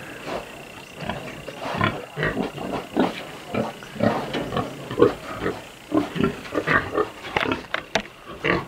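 Pigs grunting in a pen, a dense run of short, irregular grunts.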